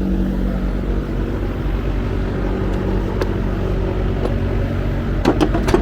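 A steady low hum with a rumble under it, and a few sharp clicks or taps about five seconds in.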